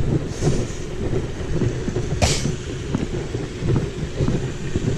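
Wind buffeting the microphone: a steady low rumble, broken by small knocks and one sharp click a little over two seconds in.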